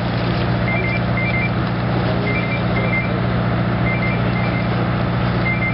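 Steady low drone of the fishing boat's machinery, with short high electronic beeps in quick pairs repeating about every second and a half.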